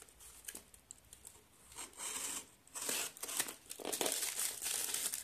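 Packaging crinkling and rustling as a parcel is unwrapped by hand, in irregular bursts with small clicks, busier from about two seconds in.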